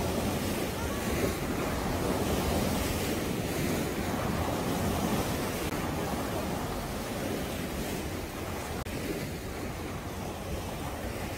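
Sea waves breaking and washing over shoreline rocks: a continuous rushing surf, a little louder in the first half, with wind on the microphone.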